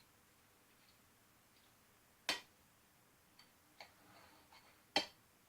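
Knife and fork clicking against a plate while cutting into a chicken thigh: two sharp clinks a little under three seconds apart, with a few lighter ticks and a faint scrape between them.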